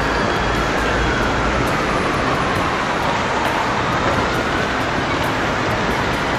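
Steady rumble and hiss of traffic-like noise, with a faint tone that slowly rises and falls.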